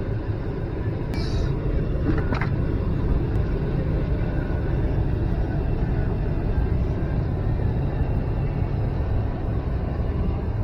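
Steady low rumble of a pickup truck driving, with road and engine noise, and a short high squeak about a second in.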